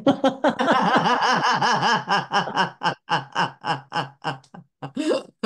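People laughing: a run of quick, evenly spaced laughs, about five a second, weakening over the last couple of seconds.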